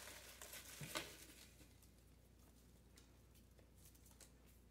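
Faint rustling and light taps of a spiral-bound planner being lifted out of a box of crinkle-cut paper shred, in the first second or so; then near silence.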